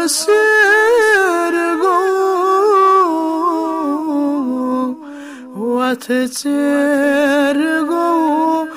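A man singing a Kashmiri nazm unaccompanied, in long held, ornamented lines, with a short pause for breath about five seconds in.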